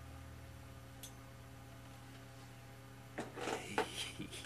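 Steady low electrical hum, with a faint click about a second in and a run of quick irregular clicks and clatter in the last second or so.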